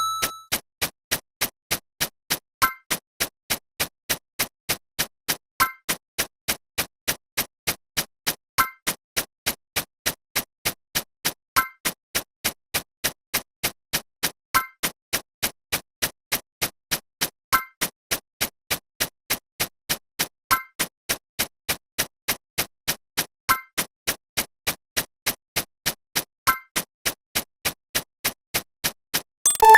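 Electronic ticking sound effect: sharp even clicks at about three a second, with a short higher beep every three seconds or so.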